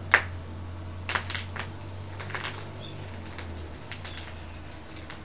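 Crumbly chalk crunching and snapping between fingers: one sharp snap just after the start, then short bursts of crisp crunching about a second and two seconds in, and a few light clicks near the end.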